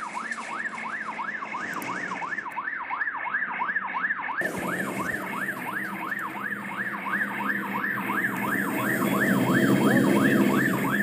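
Police siren in a fast yelp, its pitch rising and falling about three times a second without a break. A low rushing noise swells beneath it near the end.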